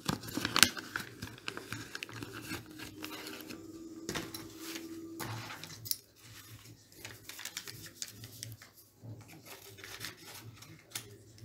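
A paper seed packet being handled and opened by hand: irregular rustling and crinkling of paper with scattered sharp clicks.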